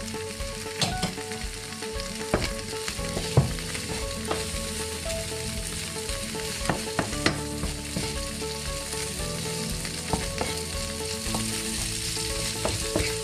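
Strips of veal frying in melted ghee in a nonstick pan, sizzling steadily, while a wooden spatula stirs them, scraping and knocking against the pan now and then.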